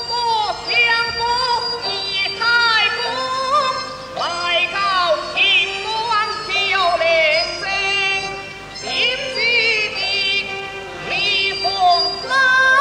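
Teochew opera aria: a solo voice sings phrases with a strong wavering vibrato over steady instrumental accompaniment.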